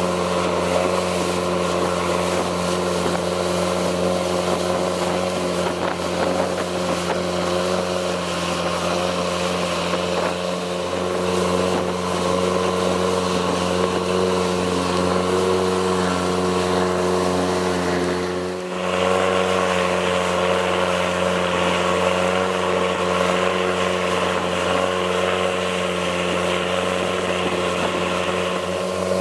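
Longtail boat's engine running steadily at speed, a constant drone with wind and water noise over it. The sound dips briefly about two-thirds of the way through, then carries on with more hiss.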